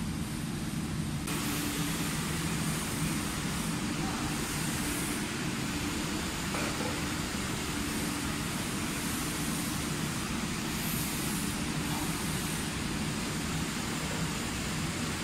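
Steady factory-floor background noise: a continuous hiss with a low machinery hum.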